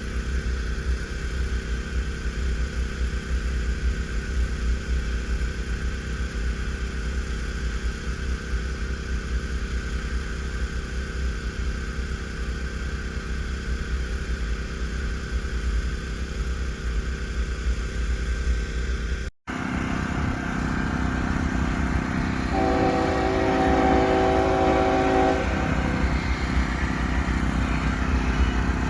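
Steady low rumble of a running engine, then after a cut a train's horn sounds one chord for about three seconds over the rumble of the train.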